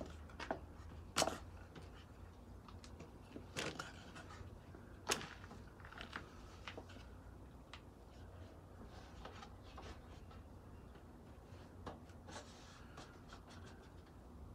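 Wooden boards being handled and laid on a wooden workbench: scattered light knocks, clicks and rubbing, with a few louder knocks in the first five seconds, over a low steady hum.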